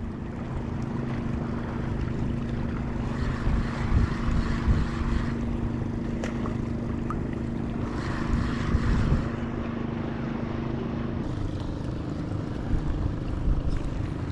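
A fishing boat's diesel engine running with a steady low hum, over wind and water noise. About eleven seconds in, part of the engine's tone drops away.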